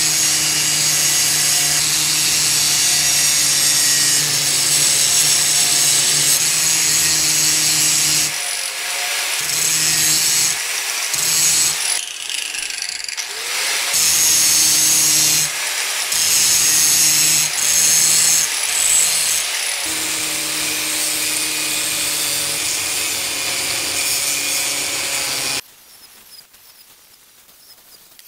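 Electric angle grinder with an abrasive disc grinding the steel head of a hatchet: a steady motor whine under a loud grinding hiss, broken by several short pauses. The sound cuts off suddenly near the end.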